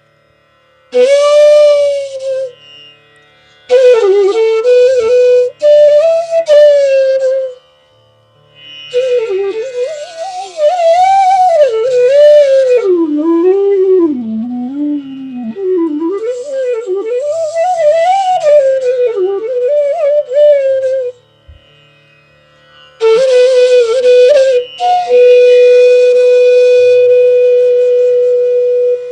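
Bansuri, the North Indian bamboo flute, playing a raga melody in phrases separated by short pauses, with sliding, ornamented notes. The longest phrase, in the middle, winds down low and back up, and the playing settles onto a long held note near the end.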